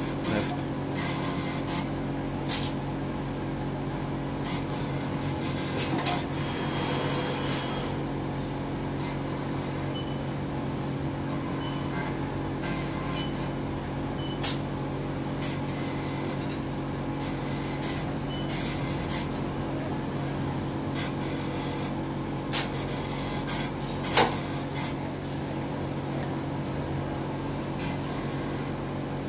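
Steady machine hum of an automated circuit-board handling cell with KUKA robot arms at work, with a few short sharp clicks spread through it, the loudest late on.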